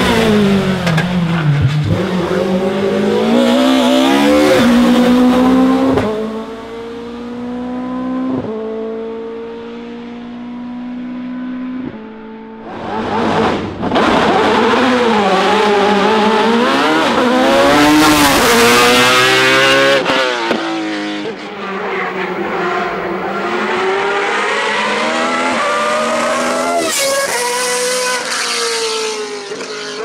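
Racing car engines at full throttle as hillclimb cars run past one after another. First an Audi A4 touring car pulls hard with quick upshifts every couple of seconds. Then a single-seater formula car's engine revs up and down through the gears.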